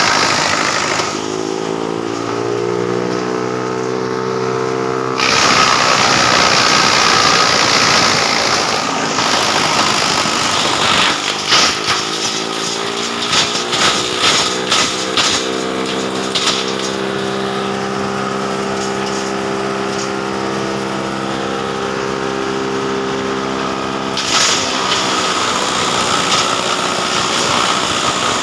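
Heavy-duty wood chipper running loudly. A deep droning tone comes in about a second in and again from about twelve seconds to near the end, the machine under load as it chips. A run of sharp knocks falls between about eleven and sixteen seconds.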